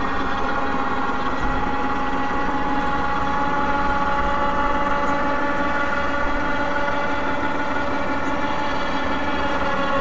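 Electric lift motor of a Bundutop rooftop tent whining steadily as it raises the tent roof on battery power. The pitch sags slightly toward the end.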